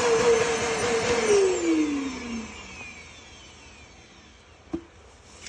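Roomba auto-empty base's vacuum motor running to suck dirt out of the robot's bin, then switching off about a second in and winding down, its hum falling in pitch as it fades. A short click near the end.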